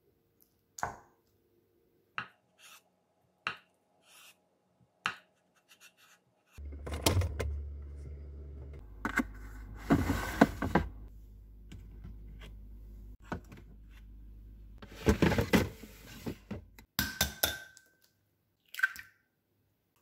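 A chef's knife cutting through a block of Spam and knocking on a wooden cutting board, several separate strokes. Then a steady low refrigerator hum with a plastic fridge drawer sliding and clattering. Near the end come short sharp knocks of eggs being cracked into a glass cup.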